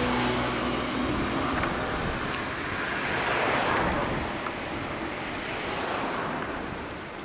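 Road traffic noise: a vehicle passing with a whoosh that swells to a peak about three and a half seconds in, a smaller swell near six seconds, then fading.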